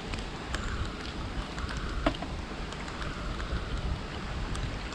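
Rain falling on shallow water flowing over a path, with a low wind rumble on the microphone and scattered sharp ticks of drops; the loudest tick comes about two seconds in.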